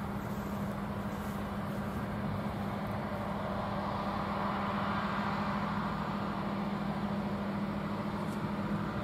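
Diesel power of a slow-moving railway ballast cleaner running as it rolls along the track: a steady low hum with a broad rumble that swells slightly about halfway through as the machine draws nearer.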